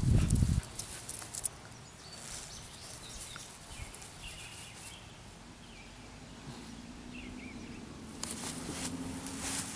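A dog sniffing and nosing through grass, with a louder stretch of rustling and snuffling near the end. Faint chirps sound in the background, and a brief low rumble with a few clicks comes in the first second or so.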